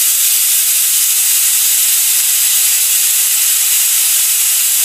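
Pressure cooker whistle: steam jetting out under the weighted valve on the lid in a loud, steady hiss, the sign that the cooker has reached full pressure.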